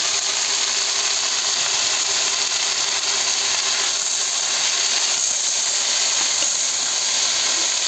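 Bitter eggplant frying in hot oil with garlic and ginger: a loud, steady sizzle.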